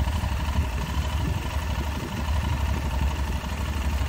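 Aprilia Tuareg 660's parallel-twin engine idling steadily while the bike stands still.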